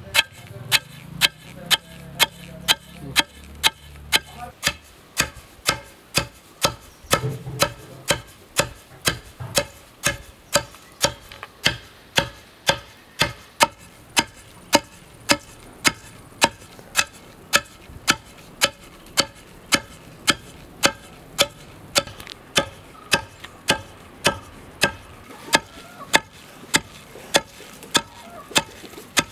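Long wooden pestle pounding roasted rice in a stone mortar: a steady rhythm of sharp knocks, about two a second, as the rice is crushed into powder.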